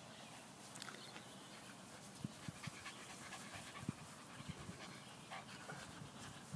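Dog panting quietly, with a few faint soft thumps around the middle.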